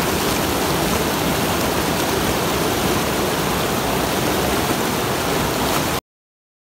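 Rushing white water: a steady, even noise that cuts off suddenly near the end.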